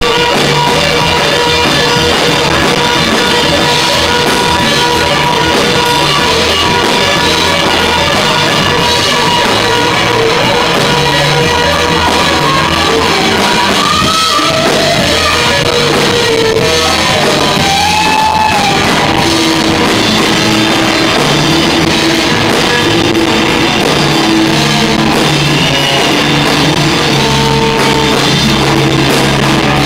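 Rock band playing live and loud, with electric guitars over a drum kit.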